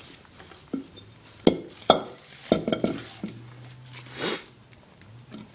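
Loose metal engine parts clinking and knocking against each other as they are handled, with several sharp clinks in the first three seconds, then a brief rustle near the end.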